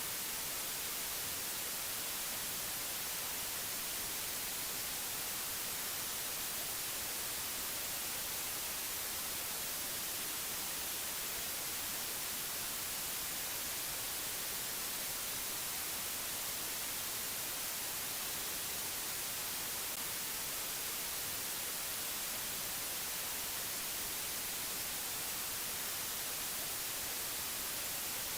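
Steady, unchanging hiss like white noise or static, brighter in the high frequencies.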